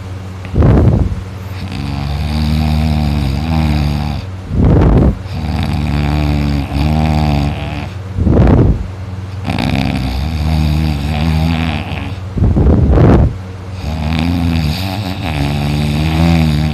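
A person in deep sleep snoring and moaning loudly in a regular cycle about every four seconds: a short loud snore, then a long moan that wavers slightly in pitch.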